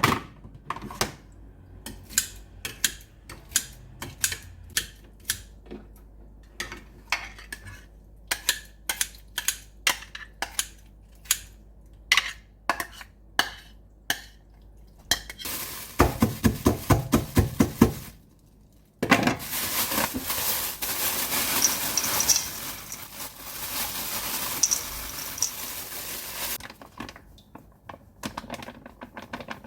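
Kitchen utensils clinking and knocking against dishes and bowls at an irregular pace. Past the middle comes a short run of quick, even strokes, then several seconds of steady hissing.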